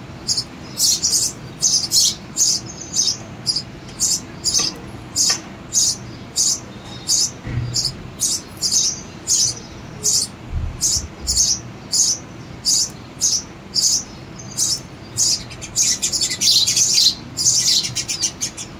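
Sparrow nestlings in a nest box chirping to beg for food, in short high calls about twice a second, growing denser and louder near the end.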